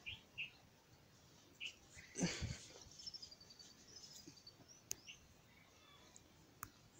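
Quiet background with a few faint, short, high chirps and a thin descending trill, a brief rustling noise a little over two seconds in, and a couple of sharp clicks in the second half.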